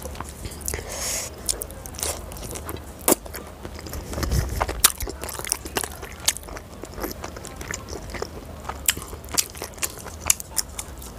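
Close-miked eating: a person biting and chewing pieces of fried chicken and Schezwan fried rice, with irregular sharp wet mouth smacks and crunches.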